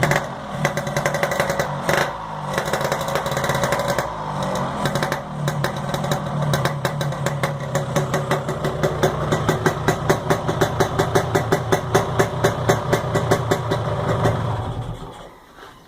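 Yamaha RX-King's single-cylinder two-stroke engine idling on its warm-up. It runs with a rapid, even pulse, then stops and dies away about a second before the end.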